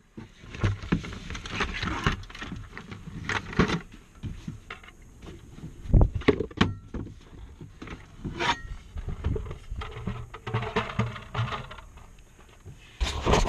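Irregular knocks, clicks and rustling from a camera tripod being set up and handled close to the microphone, with a louder knock about six seconds in.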